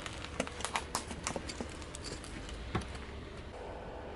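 Plastic disposable lighters cracking and popping one after another under a car tyre: a quick run of sharp snaps over about three seconds, the loudest near one second in and near the end of the run.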